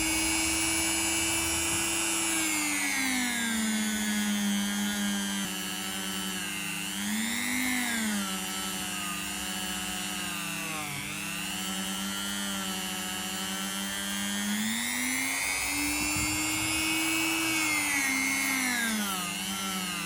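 Small electric rotary tool spinning a polishing wheel with compound against a watch case to buff out scratches. Its whine falls and rises in pitch several times.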